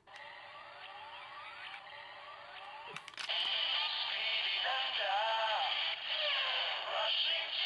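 Kamen Rider Zero-One capsule-toy Progrise Key playing its electronic sound effects through a tiny speaker: a repeating rising standby tone, then a click about three seconds in and a louder electronic transformation jingle with a synthesized voice.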